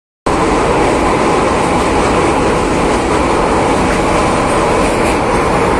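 Steady rumble and wind noise of a train running across a steel girder railway bridge, heard from aboard the train.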